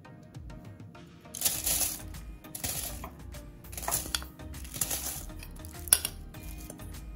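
Buttery shortbread crumbs poured from a glass bowl into a parchment-lined metal springform pan, rustling down onto the paper in four or five short pours. A sharp tap comes about six seconds in, and soft background music plays underneath.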